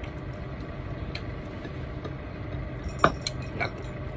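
Small clinks and clicks of fingers picking fish off a ceramic plate while eating, over a steady low hum, with a brief louder sound about three seconds in.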